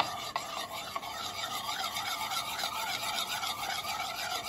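Metal spoon beating egg and milk in a ceramic plate: a steady rhythmic scraping and squeaking of metal against the plate, about three strokes a second.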